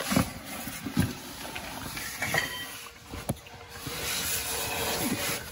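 Rustling handling noise from a hand-held camera being moved, with a few sharp knocks: two about a second apart at the start and one around three seconds in.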